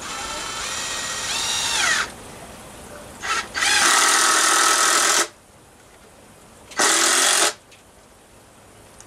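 Cordless drill driving screws into a wooden post. It runs in several bursts: first a whine of about two seconds whose pitch drops as the screw seats, then a short blip, a loud run of about a second and a half, and a shorter run near the end.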